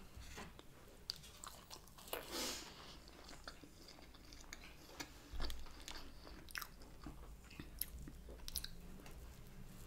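Faint, close-up chewing and biting of soft food (chips and chicken wrapped in flatbread), with scattered wet mouth clicks and smacks. A brief soft rush of noise comes about two seconds in.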